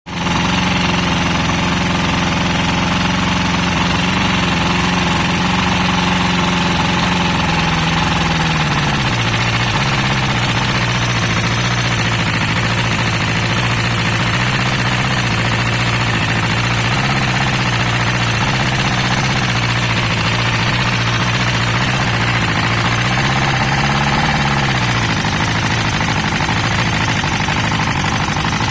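1988 Evinrude V4 90 hp two-stroke outboard running, with the carburetor on the fourth cylinder sneezing, spitting back out of its mouth, for a cause unknown. It runs at a fast idle, settles to a lower speed about nine seconds in, then rises briefly and drops back near the end.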